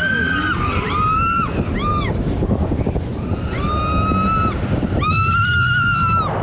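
High-pitched screams from riders on a fast-moving roller coaster: about five held cries that rise, hold and fall, the last one the longest. Wind rushes over the microphone throughout.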